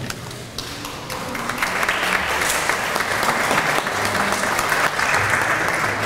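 Audience applauding, building up about a second in and then holding steady.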